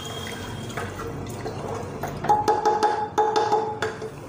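Steel spoon stirring dal and vegetables in an open pressure cooker, then knocking about seven times in quick succession against the cooker, each knock ringing with a bright metallic tone.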